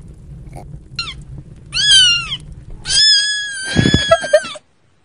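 Cat meowing: a short call about a second in, a falling meow around two seconds, then one long drawn-out meow, with a brief low rumble under it near the end.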